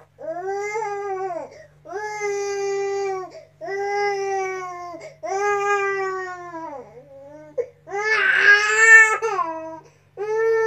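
Baby boy crying in a run of long wails, each about a second long with short gaps for breath between them; one wail about eight seconds in is louder and more strained than the rest.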